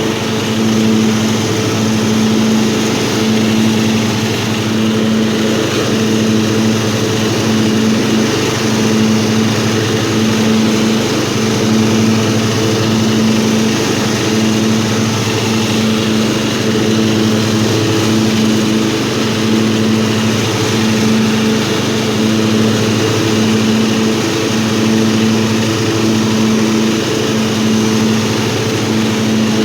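Old riding lawnmower engine running steadily, its hum pulsing slightly a little more than once a second.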